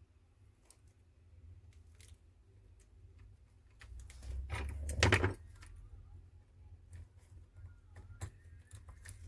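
Small clicks and taps of smartphone parts and tools being handled on a work surface during reassembly. About four seconds in there is a louder rustling scrape lasting roughly a second and a half.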